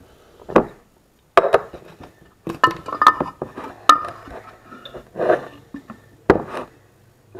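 Kitchen clatter: dishes and utensils knocked and clinked on a countertop, a series of separate knocks with a short ringing clink about three to four seconds in.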